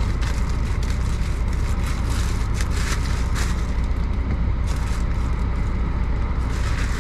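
Steady low rumble of an idling truck heard from inside the cab, with scattered crinkling and scraping as a parcel is opened by hand.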